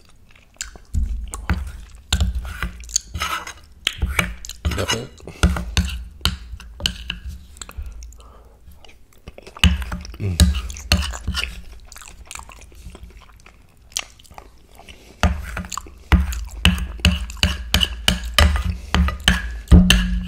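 Close-miked chewing of spoonfuls of gumbo, wet mouth clicks in runs with two quieter pauses, about a third and two-thirds of the way through.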